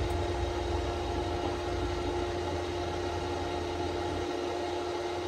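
Steady background machine hum with a constant mid-pitched tone over a low rumble.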